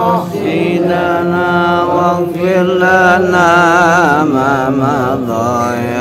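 Men chanting Islamic prayers in Arabic, a lead voice amplified through a microphone, holding long, wavering, ornamented notes over a steady lower line.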